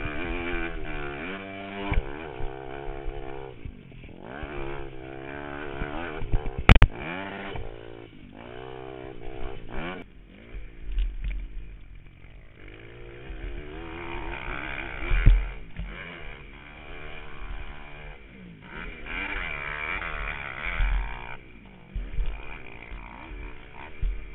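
Pit bike engine revving up and down as the rider accelerates and backs off around a rough dirt track, heard from the bike. A sharp knock about seven seconds in is the loudest moment, and there are a few low thuds over the ruts.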